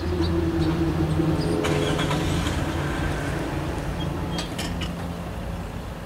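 WCH crossing gate mechanisms raising the gate arms after the bell has stopped: a steady motor hum that fades out about three seconds in, over a low steady rumble.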